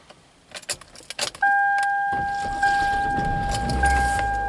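Keys jangling and clicking in the ignition, then a steady electronic warning chime that sounds from about a second and a half in and re-sounds about every 1.2 seconds. The car's engine starts about two seconds in and runs on under the chime.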